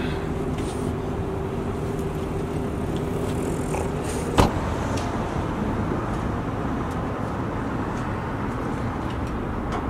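Steady traffic and vehicle hum. About four seconds in, a Land Rover LR2's rear door is slammed shut once, the loudest sound, and a faint steady hum stops with it.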